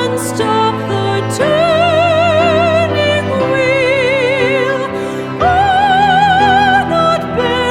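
Ballad music: a wordless melody with wide vibrato holding long notes over sustained chords and bass.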